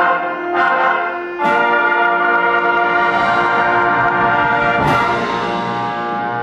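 Concert wind band playing a loud sustained chord led by brass, with accented strikes early on and a cymbal crash about five seconds in.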